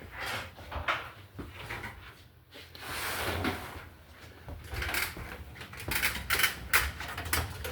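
Irregular clicks and knocks, with a short rustling stretch about three seconds in and a denser run of clicks in the second half.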